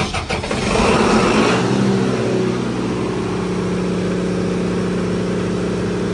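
Diesel standby generator engine just after starting, running up to speed with a rising rush of noise over the first two seconds, then settling into a steady, even run at full speed, ready to take the transferred load.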